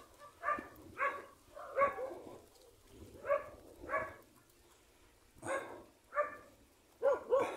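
Dog barking repeatedly, about a dozen short barks in uneven bursts with a pause of about a second just past the middle.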